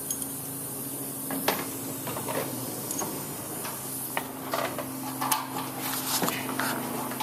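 Scattered metallic clinks and knocks of hand tools on metal, over a steady low hum, as work goes on fitting the bolts between a rebuilt diesel engine and its bell housing.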